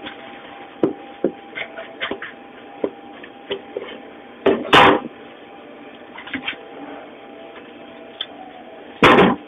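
Handling noise at a deli counter: scattered knocks and clicks of items being picked up and set down, with two louder noisy bursts, one about halfway through and one near the end, over a steady low hum.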